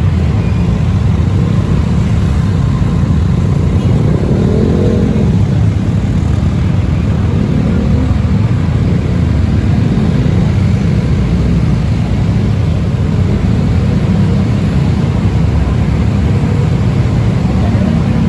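Steady low rumble of a motor vehicle on the move, with road and wind noise.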